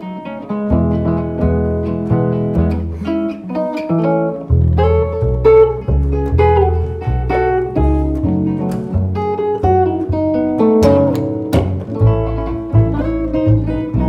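Upright double bass and archtop guitar playing an instrumental passage. The bass is plucked in a steady line of low notes about two a second, under a single-note guitar melody with some sliding notes.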